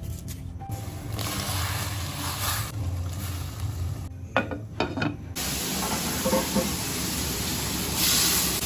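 Food sizzling as it fries in a hot pan, a steady hiss. It breaks off briefly about four seconds in, with a few sharp knocks, then comes back and grows louder near the end.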